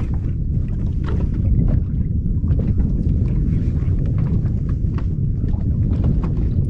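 Steady low rumble of wind buffeting the microphone, with faint scattered ticks and slaps over it.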